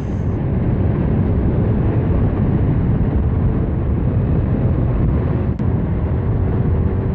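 Honda Beat FI scooter's single-cylinder engine running under way, with steady wind and road rush over the microphone. There is a brief click about five and a half seconds in.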